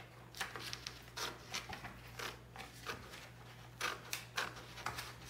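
Scissors cutting through a large sheet of paper pattern: a string of uneven snips, about two a second.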